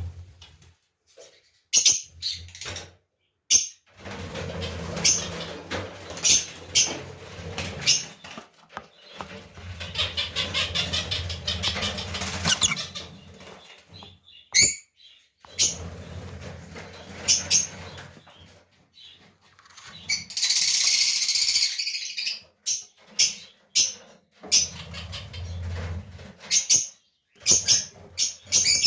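Birds flapping and fluttering their wings and moving about, with short chirps and many sharp clicks and taps. About two-thirds of the way through there is a loud, rasping, hissy noise lasting about two seconds.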